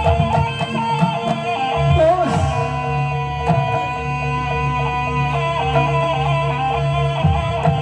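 Accompaniment music for a barongan folk performance: a wavering, ornamented melody over a steady held drone and low notes, with regular drum strokes.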